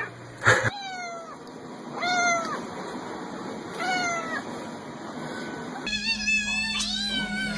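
Domestic cat meowing repeatedly: a loud short call about half a second in, then a string of drawn-out meows that each fall in pitch. Near the end, several meows come close together.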